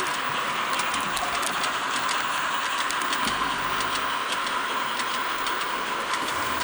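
Model trains running on a model railway layout: a steady whirring hiss with many light, irregular clicks of wheels over the track.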